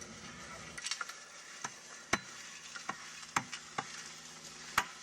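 Sharp metal clicks, several of them at irregular half-second-to-a-second intervals, with light scraping as a Ringmaster tire-mounting tool is cranked to push a loader tire and ring assembly onto the wheel.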